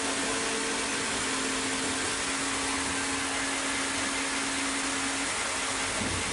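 Serra XT 135 mobile band sawmill running, a steady machine noise with a steady hum that drops out briefly about five seconds in.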